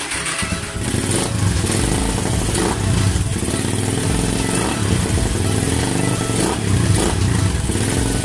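Suzuki Raider 150's single-cylinder four-stroke engine running and being revved by twisting the throttle grip, a test of the newly installed throttle cable.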